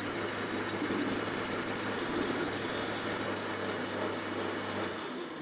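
Metal lathe running, turning down an aluminium bar, a steady motor hum under the cutting noise. Near the end the hum stops and the sound dies away as the machine winds down.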